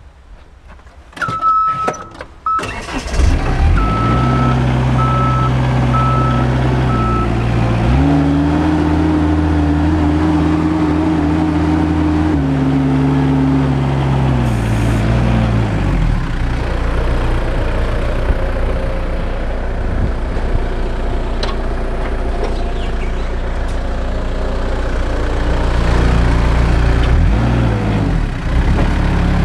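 Forklift engine started and then running, with a warning tone and a few clicks just before it fires and a run of evenly spaced beeps for a few seconds after. The engine revs up about eight seconds in, holds, and settles back about sixteen seconds in.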